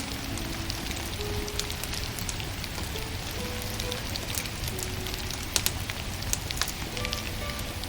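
Firewood burning: a steady hiss with scattered sharp crackles and pops, two louder pops a little past halfway. Soft, slow music notes play underneath.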